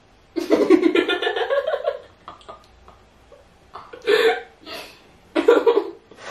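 Two girls' wordless vocal reactions of disgust: a long rising groan early on, then short bursts of laughter and gagging noises. The food they have just tasted makes one of them feel sick.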